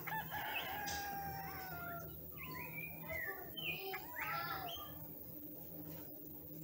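Bird calling: a quick run of chirps and slurred, gliding whistles that stops about four and a half seconds in.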